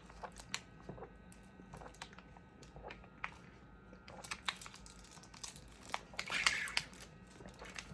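Scattered light clicks, with a short crinkling rustle a little past the middle.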